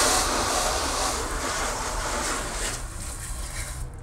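Water jetting from a hose spray nozzle into a truck's wheel well and onto the tyre, a pre-rinse to knock off dirt and dust. A steady spray that starts suddenly and grows a little fainter toward the end.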